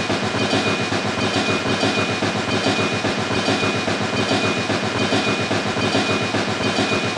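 A small machine running steadily with a rapid, regular clatter and a steady high whine.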